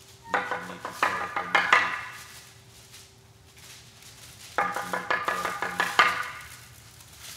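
Custom-made ceramic percussion instruments struck in two quick flurries of ringing, pitched notes, each lasting about a second and a half, with a pause of a couple of seconds between them.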